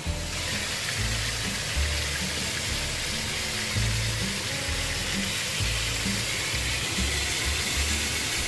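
Stuffed squid frying in hot oil in a pan, a steady sizzle, over background music with a low, shifting bass line.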